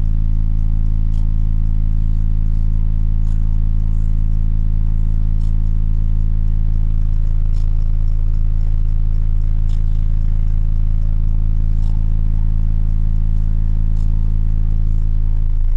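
Car audio subwoofers playing a loud, steady deep bass tone that holds without change, with a faint light tick about every two seconds.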